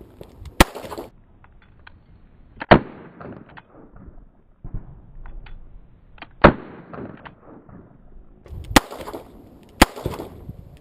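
Five gunshots, each a sharp crack, at irregular intervals of one to four seconds, with faint clicks and handling noise between them.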